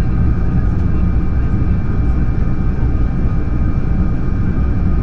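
Airbus A220-300 jet engines running with a steady hum of several fixed tones over a heavy, unbroken low rumble.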